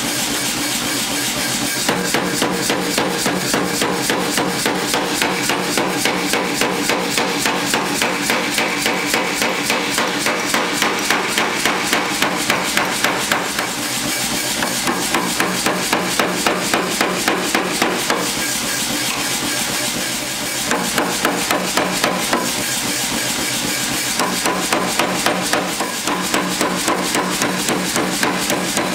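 Steady, rapid hammer blows on red-hot mild steel, about three a second in runs with brief pauses, as the bar is flattened into a trowel blade. A steady roar runs underneath.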